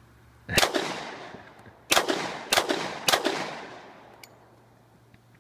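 Four gunshots from a firearm at a shooting range: one, a pause of about a second and a half, then three in quick succession about half a second apart, each trailing off in a long echo.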